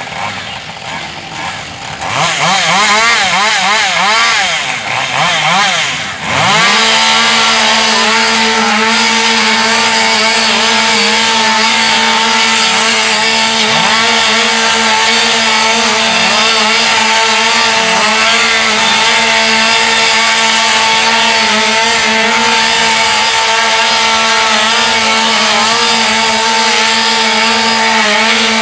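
Two-stroke chainsaws cutting limbs off a log: after a quieter start, the engines rev up and down for a few seconds, then from about six seconds in settle into a steady, unbroken full-throttle drone.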